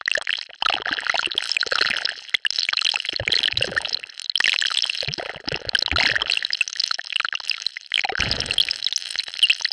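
Designed alien virus mutation sound effect: a dense, wet bubbling and crackling liquid texture, with a deeper swell three times.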